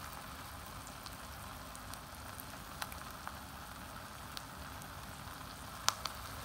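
Egg batter sizzling in the heated wells of a Grillo-400 electric egg roll maker: a steady hiss with scattered small pops, the sharpest a little before the end. The eggs are cooking through on their skewers and are nearly done.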